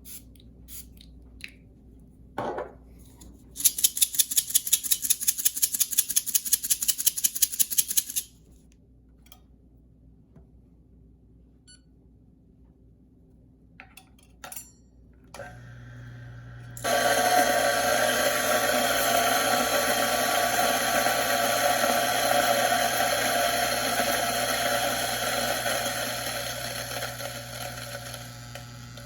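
A run of rapid, evenly spaced rattling clicks lasting several seconds. Then the Ceado E5SD single-dose espresso grinder's motor starts with a low hum and loudly grinds a dose of coffee beans, the grinding easing off near the end.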